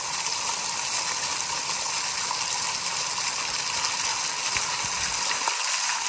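Small waterfall splashing down a shale cliff, heard from right under the falling spray: a steady hiss of falling water.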